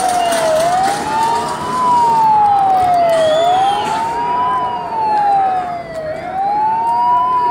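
Emergency-vehicle siren wailing, its pitch climbing quickly and then sliding slowly back down in a cycle of just under three seconds, repeating about three times.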